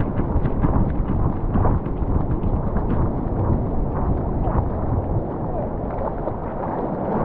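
Heavy wind rumble buffeting the microphones of a GoPro Max, with scattered knocks on top.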